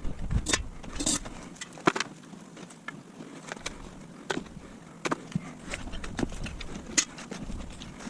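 Potato-harvesting work sped up four times: a string of irregular sharp knocks and clicks, about one or two a second, over a low rumble that comes and goes.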